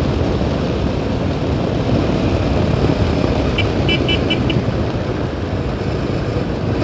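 Yezdi Adventure motorcycle being ridden at a steady pace: an even drone of engine, wind and road noise. About four seconds in, a quick run of about five short high beeps sounds over it.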